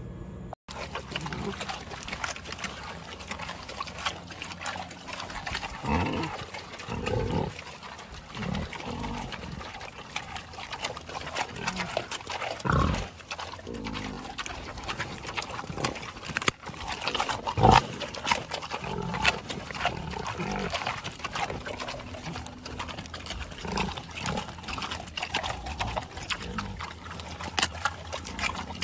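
Pigs chewing carrots with many sharp wet crunches, and a few low grunts in between.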